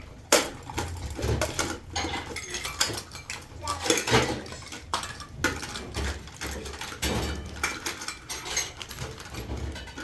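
Dishes and utensils being handled: repeated clinks and knocks of pots, plates and cutlery, the sharpest about a third of a second in.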